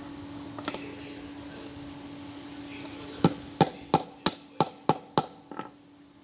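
Hammer blows: a single knock, then about eight sharp strikes in quick succession, roughly three a second, over a steady hum.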